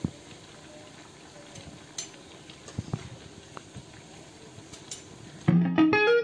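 Jackfruit seed vadas deep-frying in hot coconut oil, a steady sizzle with a few sharp clicks of the metal ladle and strainer against the pan as the browned vadas are lifted out. About five and a half seconds in, guitar music starts.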